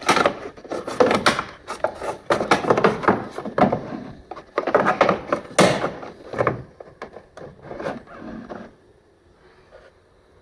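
A dense run of irregular knocks, clunks and scraping as hard objects are handled and moved about, stopping about eight and a half seconds in.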